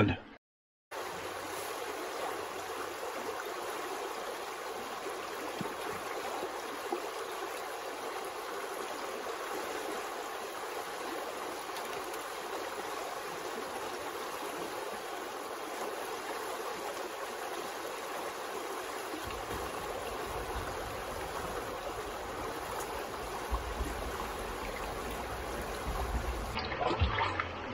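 River water flowing steadily, an even rushing sound, with a low rumble joining in for the last several seconds.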